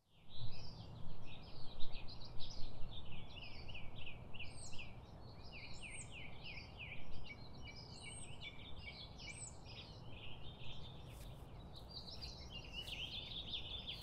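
Birds chirping and singing, many quick calls overlapping, over a steady low outdoor rumble.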